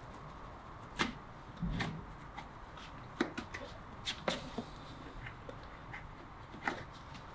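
Scattered sharp clicks and knocks of farrier's tools working on a horse's hoof, about six in all, with a duller thump just under two seconds in.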